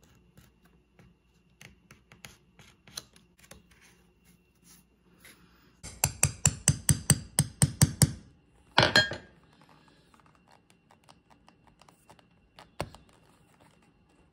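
Flat metal file rasping along the edge of a thick leather piece, about ten quick strokes in two seconds, sanding the trimmed edge smooth, followed by one louder scrape. Faint light ticks come before it, and a single sharp knock comes near the end.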